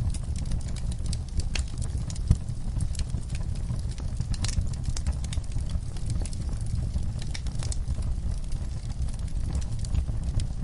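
Wood fire burning logs: a steady low rumble of flames with irregular crackles and pops, one louder pop about two seconds in.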